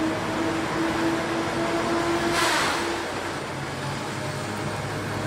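Heavy machinery running: steady mechanical noise with a held hum that fades about three seconds in.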